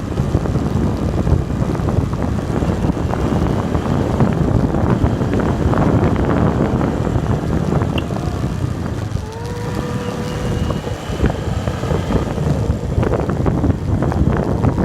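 Wind buffeting the microphone of a bike moving fast downhill: a loud, steady, low rumbling noise. About nine seconds in, a held tone slides up and stays level for a few seconds, then fades.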